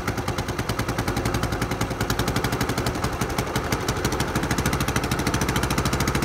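Small carburetted petrol engine idling with its fuel line off, running on the petrol left in the carburettor. Its idle speed is raised by turning the carburettor's idle screw, and the running gets louder about two seconds in.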